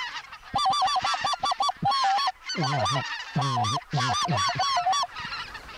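Canada geese honking: many short honks in quick, overlapping series, thinning out near the end.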